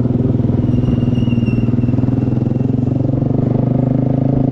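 Yamaha R15 motorcycle's single-cylinder engine running steadily.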